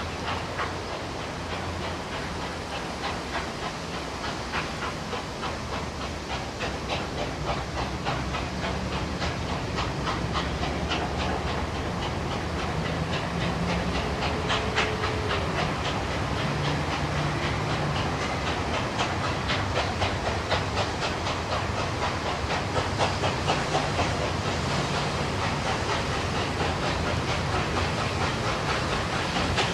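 NSW 59 class 2-8-2 steam locomotive 5910 working a passenger train, its exhaust beating in a steady rhythm over the hiss of steam from the open cylinder drain cocks. It grows louder as the locomotive draws closer.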